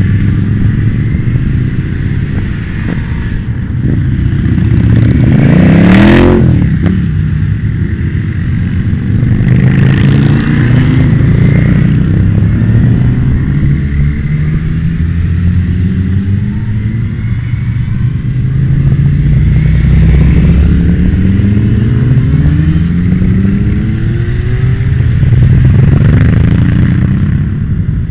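A column of motorcycles riding past one after another, engines revving up in rising sweeps as each rider accelerates through the gears. The loudest passes close by about six seconds in.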